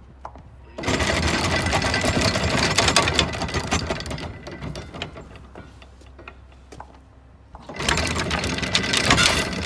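Anchor chain paying out through the boat's windlass and over the bow roller, a fast, loud rattle of steel links. It runs in two spells: it starts about a second in, dies away around four seconds in, and starts again near the end.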